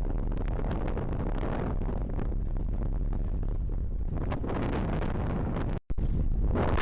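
Strong wind buffeting the microphone aboard a sailboat racing in over 22 knots of wind, a steady low rumble of gusty noise. The sound cuts out for an instant near the end.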